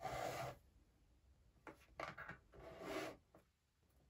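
Plastic backing film peeled off a PanzerGlass screen protector crinkling and rustling as it is handled, in three short bursts: one at the start, a broken one a little under two seconds in, and one around three seconds in.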